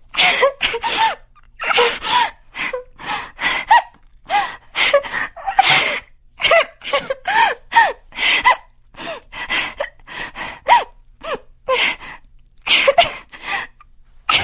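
A cartoon character's crying sound effect: rapid gasping sobs, several a second, broken by short wavering cries.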